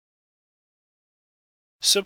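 Silence, then a voice starts speaking near the end.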